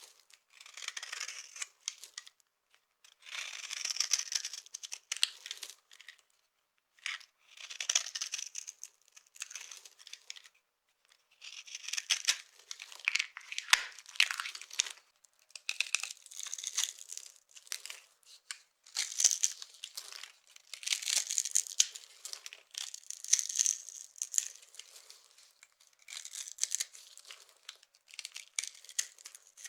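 Dry soap being crushed and crumbled, in crackling, crunchy bursts of a second or two with short pauses between.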